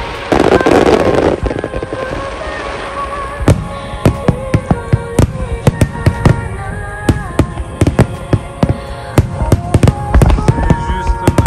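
Aerial fireworks bursting: one big boom about a second in, then a run of sharp crackling pops, several a second, with music playing throughout.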